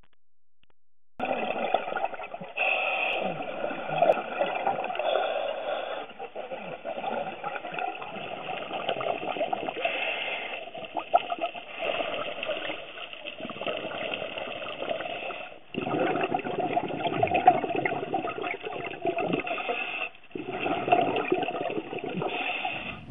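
Muffled underwater water noise, a steady rushing hiss that breaks off and starts again abruptly a few times.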